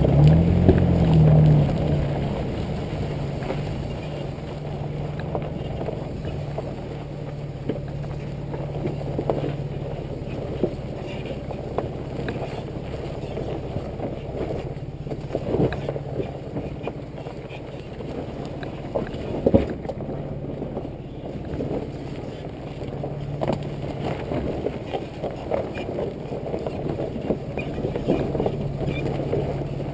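2005 Nissan Xterra's engine running with a steady low drone, picked up from low on the rear bumper, with a brief rise in revs at the start. Scattered knocks and bumps come through as the truck rolls over a rough dirt track.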